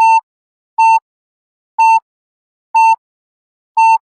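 Yo-Yo test app's rest-period countdown: five short, identical electronic beeps at one pitch, about a second apart, marking the last seconds before the next shuttle starts.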